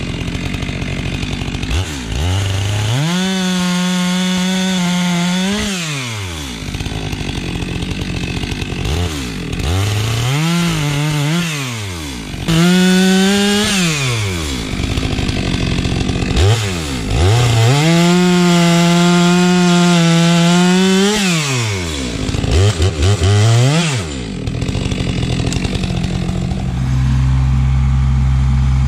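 STIHL two-stroke chainsaw bucking maple logs: it revs up to full speed and holds there through a cut about five times, dropping back to idle between cuts. Near the end the chainsaw gives way to the steady running of a Kubota compact tractor's diesel engine.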